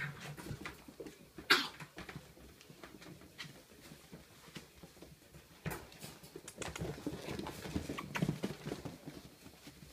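Coonhound puppies scuffling and playing on a hardwood floor: irregular clicks and patter of paws and claws, with low scuffling. One louder, sharp sound comes about a second and a half in, and the scuffling gets busier near the end.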